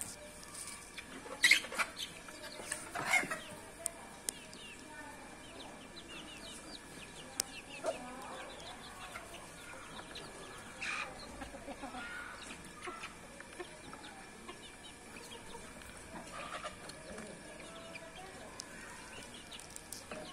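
A flock of red junglefowl clucking and calling in short, scattered notes, with two sharp, loud calls about one and a half and three seconds in.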